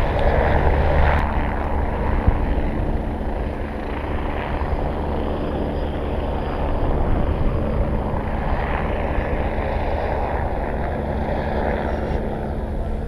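A steady low engine drone under a dense rushing noise, with no clear change in pitch.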